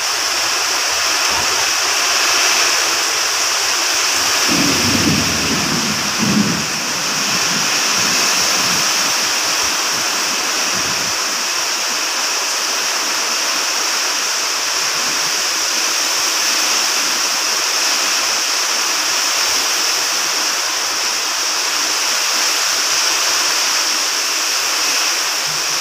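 Heavy tropical rain pouring down steadily in a thunderstorm. A brief low rumble comes about five seconds in.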